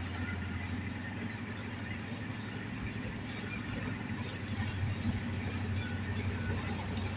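Caterpillar D9R crawler dozer's diesel engine running steadily, with a deep, even drone.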